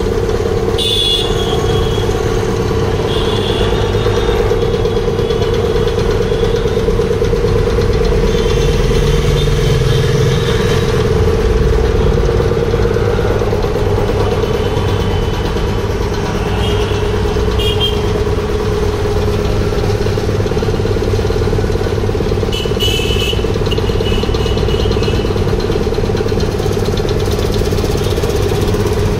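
Belt-driven double-piston (twin-cylinder) 3 HP air compressor running steadily, its 2 HP single-phase electric motor turning the flywheel and pump with an even, unbroken drone.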